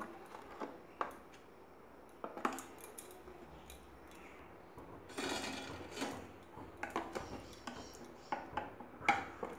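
A metal spoon clinking and tapping against a glass bowl and other kitchenware while spices are measured out, with a brief rustle about five seconds in.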